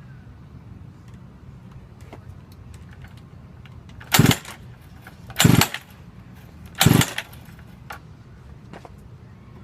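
Three short, loud pulls on a mini bike's recoil starter, about a second and a half apart, each turning the engine over briefly without it catching: the mini bike won't start.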